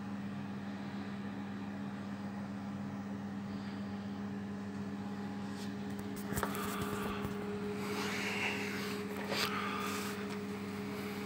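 A steady low electrical hum, with a few clicks and rustles about six seconds in and again near nine and a half seconds.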